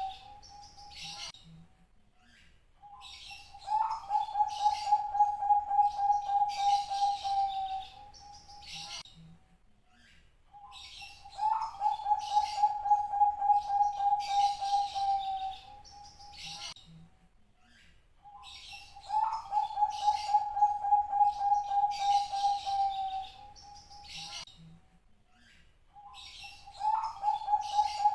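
Zebra dove (perkutut) singing: a low, rapidly pulsed coo of about four seconds, repeated about every seven to eight seconds, three full phrases, with higher chirping from small birds alongside.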